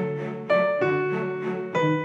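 Background piano music: notes and chords struck at an easy pace, each ringing and fading before the next.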